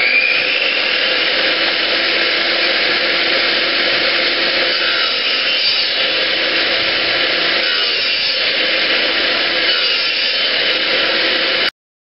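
Table saw running, its whine still rising to speed in the first moment after start-up. It then runs steadily while a 2x4 is pushed across the blade in repeated passes, cutting a row of shallow kerfs. The sound stops abruptly near the end.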